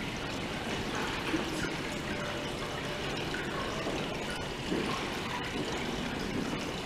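Water from a stone basin fountain trickling steadily down over the stone onto pebbles.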